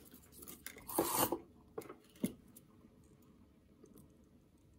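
Handling noise as hands move a wire and a soldering iron into place at a guitar pickguard's switch: a brief rubbing scrape about a second in, then two light knocks.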